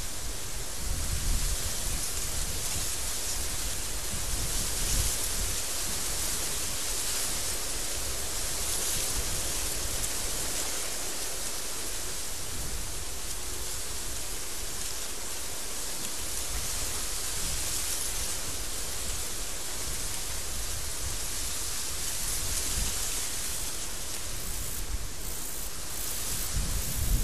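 Wind blowing in a steady rushing hiss, with low gusty rumbles near the start and again near the end.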